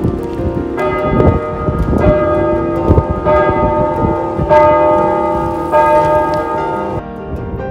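Church bells pealing, strike after strike ringing on and overlapping, with wind rumbling on the microphone. The sound drops abruptly near the end.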